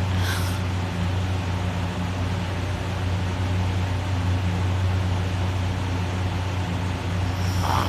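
A steady low hum over a constant hiss, with a brief higher-pitched sound just after the start and another near the end.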